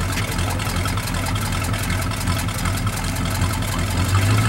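A car engine idling steadily with a low rumble, a little louder near the end.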